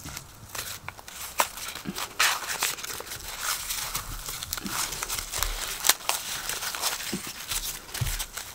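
Dry, papery corn husks rustling and crackling as they are peeled back by hand from an ear of popcorn corn, in an irregular run of crinkles and small snaps.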